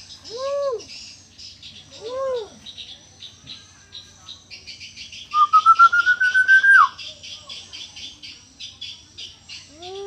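Common hill myna whistling: two short notes that rise and fall near the start, then a loud rising, pulsing whistle about five seconds in that drops off sharply at its end, and another such note at the very end. A constant high, rapid chirping of other birds runs underneath.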